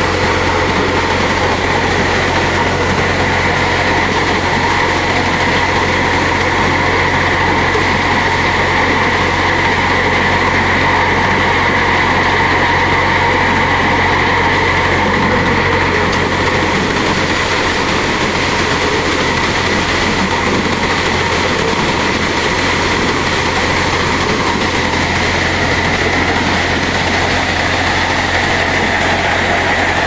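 Malwa maize thresher running steadily as cobs are tipped into its feed hopper: a constant loud mechanical din over a steady low hum.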